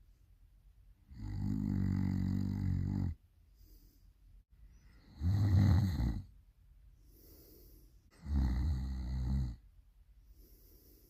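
A person snoring really loud: three long snores about three seconds apart, with softer breaths between them.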